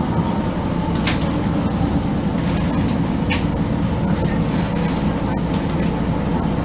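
Cabin sound of a 1999 MAN NG312 articulated city bus under way: steady diesel engine and rolling rumble. A faint high whine joins about two seconds in.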